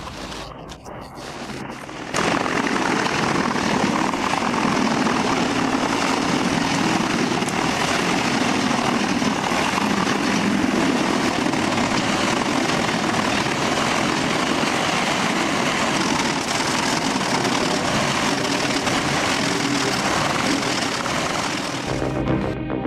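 Large drum wood chipper running steadily under load as logs are fed through it: a loud, dense, unbroken noise that sets in about two seconds in.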